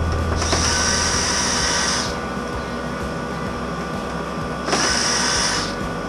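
Cordless screw gun running in two bursts, about a second and a half and then about a second, each with a rising whine as it spins up, backing out the screws on a water heater's sheet-metal vent pipe. A steady low hum runs underneath.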